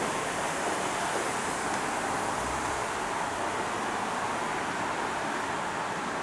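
Shonan Monorail suspended monorail train running into the station, a steady rushing noise from its rubber tyres in the overhead track beam.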